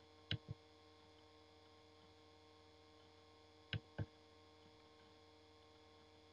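Two computer mouse clicks, each a quick pair of ticks, about three and a half seconds apart, over a faint steady electrical hum.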